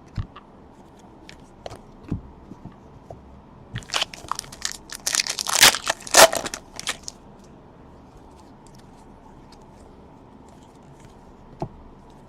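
Plastic wrapper of a trading-card pack torn and crinkled open: a burst of crackling tearing about four seconds in that lasts around three seconds. A few light clicks and taps come before and after it.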